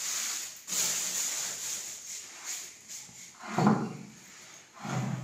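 Heavy stone grinding slab (shil) scraping and rubbing on a tiled floor as it is moved into place, with a louder burst about three and a half seconds in and another near the end.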